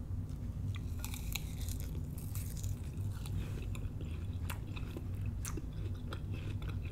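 A person chewing a mouthful of watermelon and spinach salad, with wet, crunching bites and many small irregular clicks over a steady low hum.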